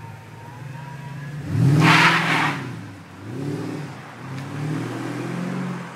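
Mercedes-Benz W221 S-Class with a custom aftermarket exhaust pulling away under acceleration: a loud burst of exhaust rasp about a second and a half in, then the engine note rises and falls twice more as it drives off.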